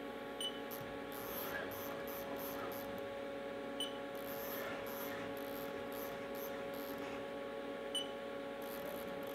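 Haas CNC mill's steady electrical hum while its table is jogged, with three short beeps from the control keypad as the jog keys are pressed.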